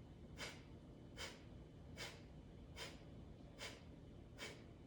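Faint, short breaths through the nose in an even rhythm, about one every 0.8 seconds.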